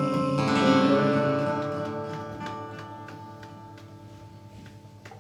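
Acoustic guitar's final chord, struck again about half a second in, ringing out and slowly fading away at the end of the song.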